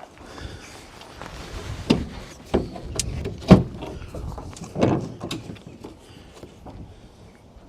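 Knocks and clunks of a Land Rover truck cab being handled and lifted into place, half a dozen separate bangs, the loudest about three and a half seconds in.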